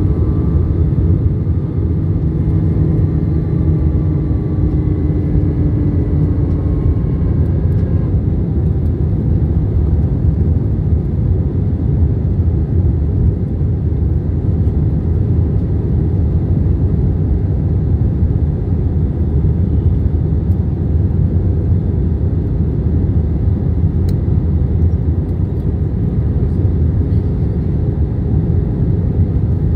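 Steady in-flight cabin noise of an Airbus A321-131: a deep, even rush of airflow and IAE V2500 turbofan engines. A few faint steady tones die away in the first several seconds.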